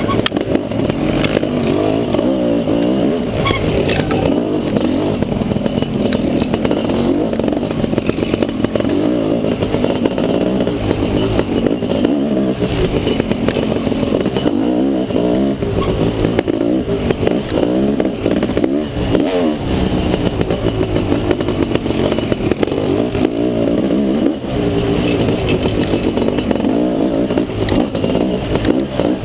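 Dirt bike engine running hard on a trail, its pitch rising and falling again and again as the rider works the throttle, with rattling and clatter from the bike over rough ground.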